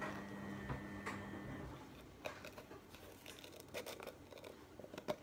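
Scattered light clicks, taps and rustling of hands working at a container and its lid. A faint steady hum stops about a second and a half in.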